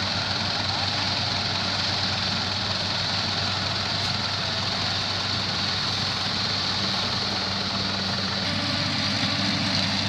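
Rice combine harvester running steadily: a continuous engine drone with a high hiss from the machine. The low tone shifts slightly near the end.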